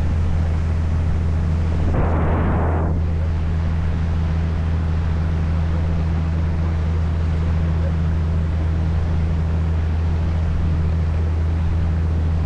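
Sightseeing boat's engine droning steadily in a low hum, with wind and water rushing past, and a brief louder rush of noise about two seconds in.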